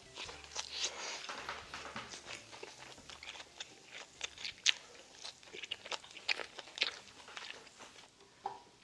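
Close-miked chewing of grilled pork belly and scallop with pickled wild garlic leaves: irregular crunches and mouth clicks.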